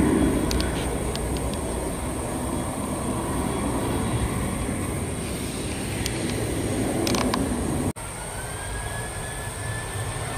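Boeing 737-800 jet engines running with a steady low rumble as the airliner lines up on the runway. The sound breaks off abruptly about eight seconds in, then a faint rising whine comes in as the engines start to spool up for takeoff.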